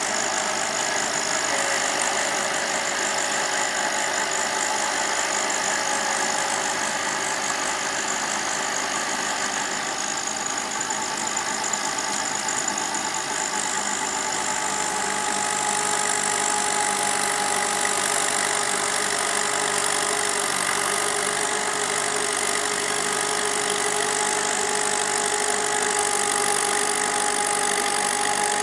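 Massey Ferguson 185 tractor's four-cylinder diesel engine running steadily while it tills a flooded paddy field with a rear rotary tiller.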